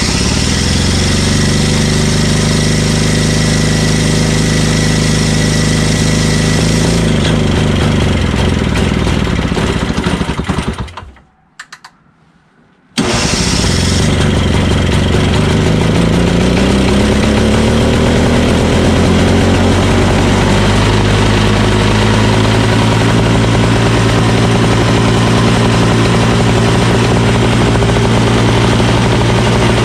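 Craftsman single-stage snowblower's 5 hp Tecumseh engine running, then slowing and dying out about a third of the way in. After a couple of seconds of quiet it restarts abruptly, climbs in speed over a few seconds and runs steadily.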